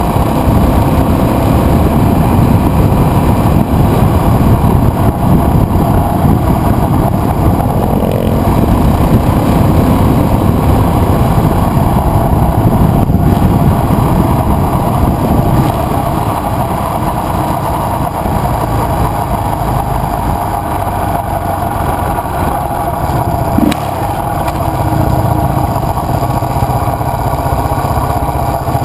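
KTM adventure motorcycle riding at about 50 mph: steady engine drone mixed with heavy wind and road noise on the handlebar camera. It eases off a little in the second half as the bike starts to slow.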